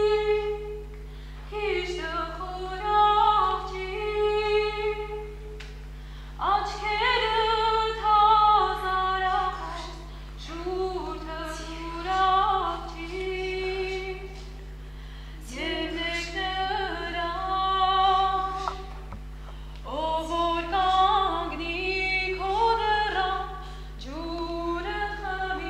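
A woman's voice singing a slow, wavering song in phrases a few seconds long with short pauses between them, over a steady low hum.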